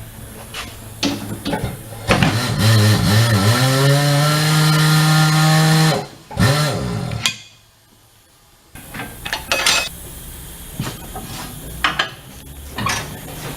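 Tire changing machine's electric motor running for about four seconds, its pitch wavering, then rising and holding steady as the wheel turns, followed by a shorter second run. Scattered metal knocks and clanks follow near the end.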